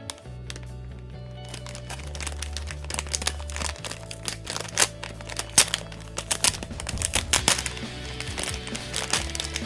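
Crinkling and crackling of plastic packaging as squishy toys are handled and unwrapped, busiest in the middle, over background music with a steady bass line.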